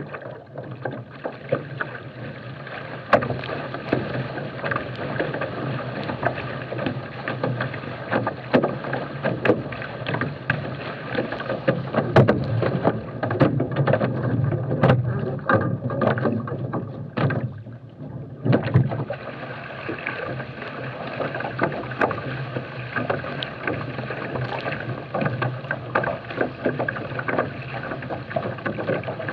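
Water rushing and splashing against a small sailing catamaran's hulls as it sails, with frequent sharp knocks and slaps from the chop.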